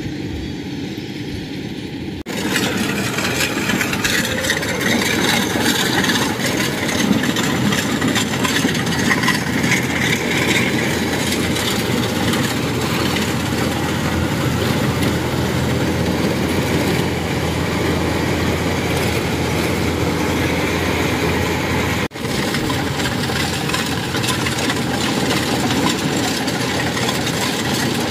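Rice combine harvester running steadily under load as it reaps and threshes rice: a continuous engine and threshing-machinery noise that gets louder and closer about two seconds in.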